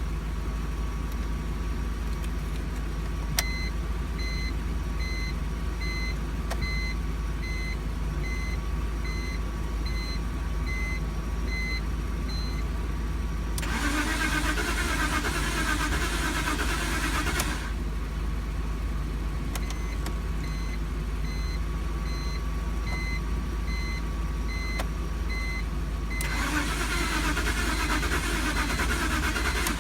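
BMW E46 starter cranking in two attempts of about four seconds each, the engine not catching: a no-start. Between the attempts a repeating electronic beep sounds over a steady low hum.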